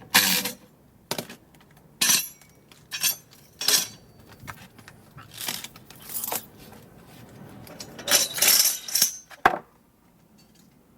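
Irregular metallic clinks and clanks of metal parts being handled and knocked together, about ten separate strikes, with a denser clatter near the end.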